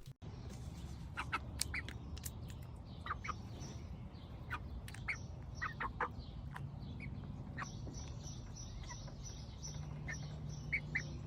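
A young Buff Orpington chick giving short, scattered chirps at irregular intervals over a steady low rumble. The keeper takes this sound for the chick saying "thank you" after treats or cuddles.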